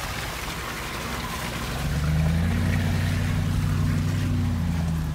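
Toyota Land Cruiser 100's V8 engine heard from inside the cabin, pulling at low speed over a rough dirt track, with more throttle and a higher engine note from about two seconds in. Road noise from the tyres on the uneven ground runs under it.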